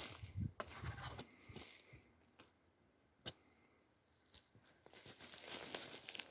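Footsteps and rustling on the forest floor: a few soft thuds, a single sharp click a little past three seconds in, then crunching and rustling of leaves and twigs that grows near the end.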